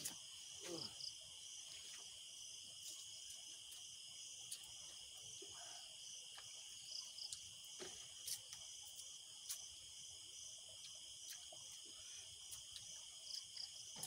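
Steady high-pitched chorus of night insects, with a faint pulsing layer above it and a few faint clicks now and then.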